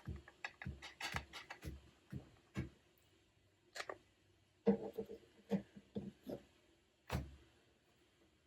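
Sharp clicks and knocks from handling a MISTI stamping tool while re-stamping an image: a quick run of taps in the first few seconds, then a few scattered knocks, the last about seven seconds in.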